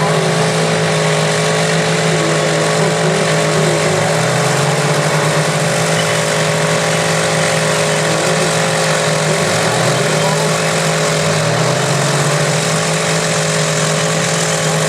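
Vintage earthmoving machines' diesel engines running steadily, their pitch shifting slightly now and then.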